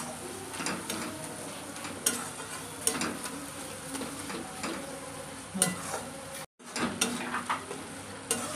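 Onion-tomato masala with spice powders frying and sizzling in a kadai while a metal spatula stirs it, scraping and knocking against the pan about once a second. The sound cuts out completely for a moment about six and a half seconds in.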